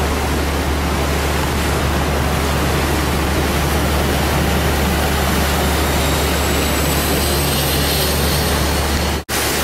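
Steady, loud drone of a boat engine under way, with a constant low hum beneath rushing noise of wind and water. It drops out for an instant near the end.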